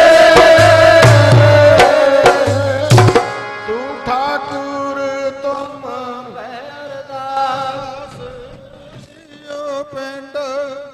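Devotional kirtan-style music: drum strokes under held melodic notes. The drumming stops about three seconds in, and the melody carries on more softly, fading with some wavering notes near the end.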